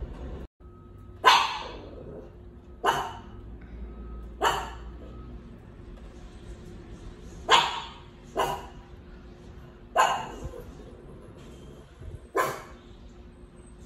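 A dog barking: about seven single, sharp barks, irregularly spaced a second or more apart.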